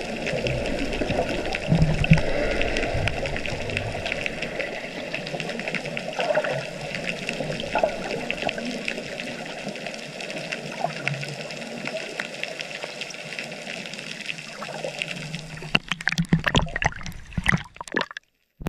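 Water heard with the microphone underwater: a steady muffled rushing with small clicks and bubbling. Near the end a run of sharp splashes breaks in as the camera nears the surface, then the sound cuts off.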